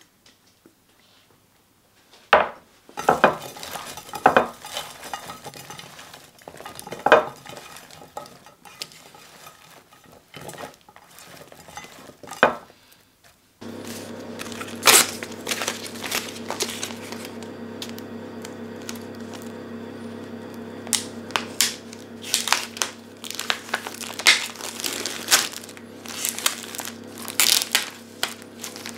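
A few sharp knocks and clatter, then, about halfway through, the crinkling and crackling of a plastic vacuum pack of cod loin being peeled open by hand, over a steady low hum.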